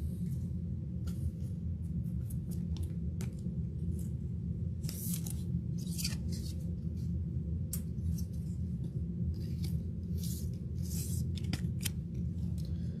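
Trading cards and their packaging being handled: scattered sharp clicks and short, hissy rustles, over a steady low hum.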